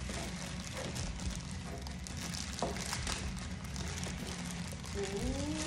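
Thin plastic toy wrappers crinkling and tearing as they are pulled open by hand, with a short rising pitched sound near the end.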